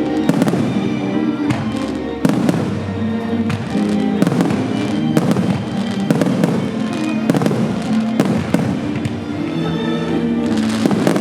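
Fireworks shells bursting in a steady run of sharp bangs, about one a second, over loud music with sustained notes.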